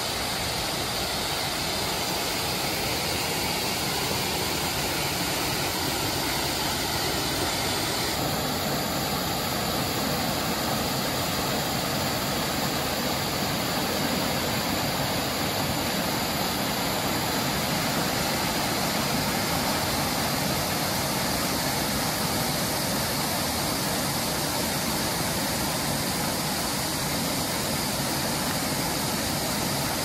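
Steady rushing of a small waterfall, water spilling over a rock ledge and splashing into a pool below.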